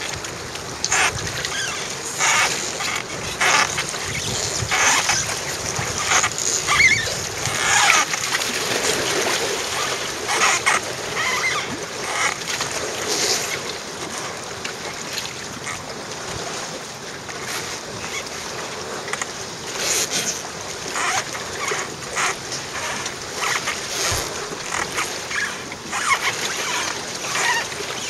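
Choppy lake water splashing and lapping in irregular small bursts, busier in the first half.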